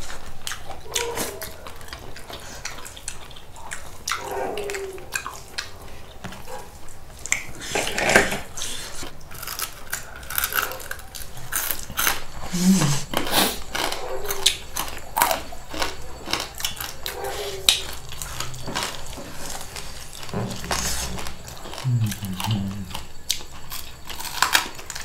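Close-miked mukbang eating of fried chicken and gundruk soup: crunching, chewing and slurping, with many short clicks of spoons and hands on plates. A couple of brief low murmurs come in about halfway through and near the end.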